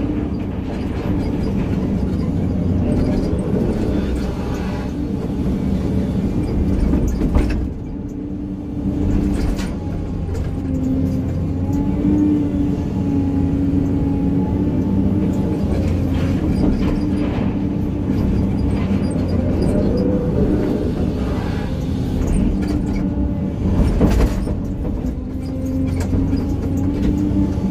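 SANY hydraulic excavator's diesel engine and hydraulics running steadily, heard from inside the operator's cab, the pitch of the hydraulic whine shifting up and down as the machine works. A couple of brief knocks stand out, about a third of the way in and near the end.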